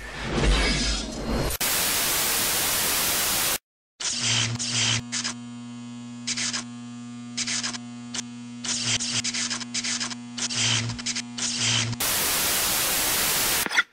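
Television static sound effect: a loud hiss of white noise that cuts out about three and a half seconds in. It is followed by a steady electrical hum crossed by crackling bursts of static, and then the full hiss again, which stops abruptly at the end.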